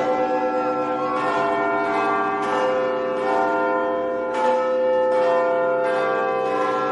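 Church bells pealing: several bells struck in turn, their tones ringing on and overlapping, with a fresh strike every second or two.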